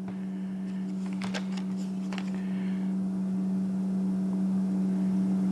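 A steady low electrical-sounding hum, with a few faint clicks and rustles of handling about a second and two seconds in.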